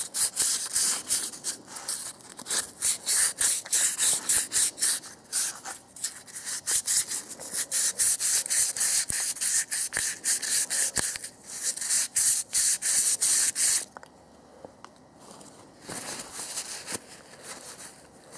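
Wet sandpaper rubbed by hand back and forth around the metal hose neck of a thermostat / water-valve housing, in quick strokes about three or four a second. This smooths the hose sealing surface. The sanding stops about fourteen seconds in, leaving only faint rubbing.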